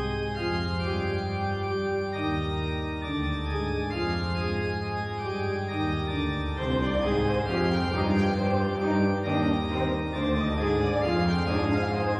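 Organ music: held chords with notes changing in steps.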